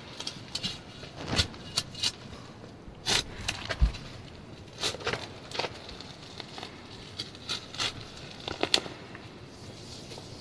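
Shovel digging into garden soil around dahlia tubers: irregular scrapes and crunches, with a dull thump about four seconds in.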